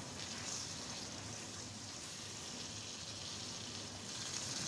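Chicken and bitter gourd curry sizzling softly in a wok as a spoon stirs it, with a slightly louder stirring stroke about half a second in and another near the end. The curry has cooked down on low heat and is ready.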